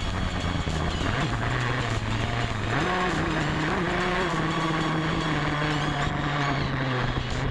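Dirt bike engine heard close up while riding, running steadily under throttle. Its pitch rises briefly about a second in, steps up about three seconds in, wavers for a second as the throttle changes, then holds steady.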